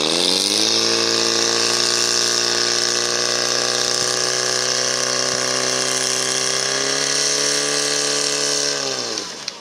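Portable fire pump's engine revving up sharply to full throttle, then running steadily at high revs as it drives water through the attack hoses to the nozzles. About nine seconds in it drops back down.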